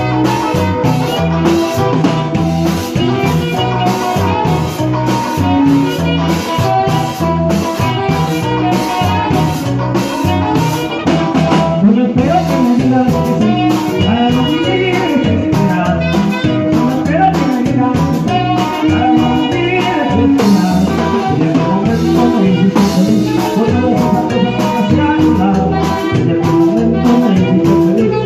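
Latin dance-band music with drums keeping a steady, even beat under a bending melody line.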